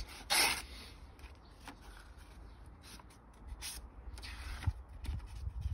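A sheet of wet-and-dry sandpaper being folded and creased by hand: a crisp rustle about half a second in, then quieter crinkles and small clicks, with another short rustle a little before the four-second mark.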